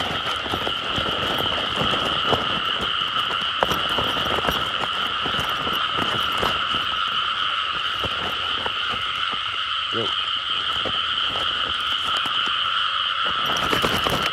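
Dense chorus of many frogs calling at once, a steady unbroken din. It is the breeding chorus that follows the first rains of the season. Scattered short noises sound underneath it.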